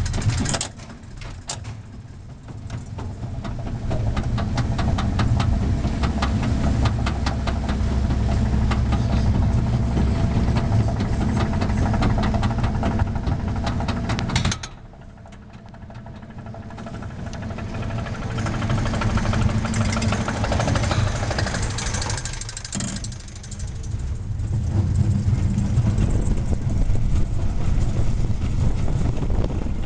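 Soquet mine-train roller coaster climbing its chain lift hill with a steady clatter of rapid clicks, which cuts off suddenly about halfway through as the train crests the top. After a brief quieter moment, the train's wheels run louder and louder along the track as it picks up speed, with a short dip before it runs on loud again.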